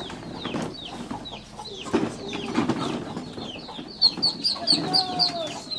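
Young poultry chicks peeping: short, high calls that fall in pitch, repeated irregularly and then in a quick run of about four a second near the end, with lower, softer calls and rustling underneath.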